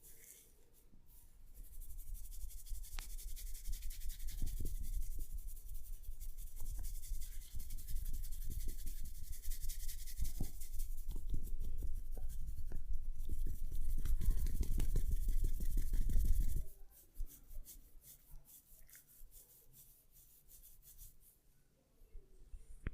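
Hands vigorously rubbing and scrubbing hair and scalp close to the microphone, a dense scratchy rustle that cuts off abruptly about two-thirds of the way through, followed by faint scattered crackles of the hair.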